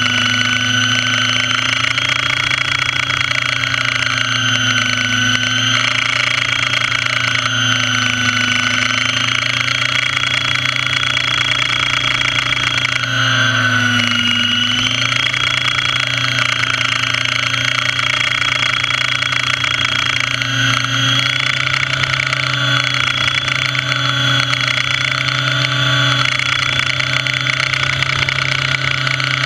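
Radio-controlled model helicopter's motor and rotor running steadily in flight, heard from on board: a loud, even hum whose pitch dips briefly several times, most deeply about halfway through, as the rotor speed sags under load.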